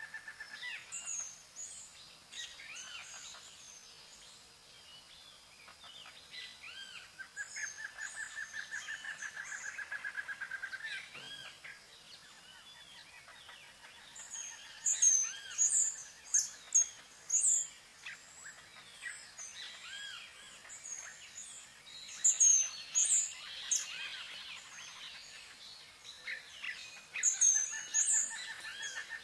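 Several songbirds calling and singing together, with many short chirps and whistles. A long, rapid, even trill sounds in the first half and again near the end, and loud bursts of sharp, high chirping come about halfway through, a little later, and near the end.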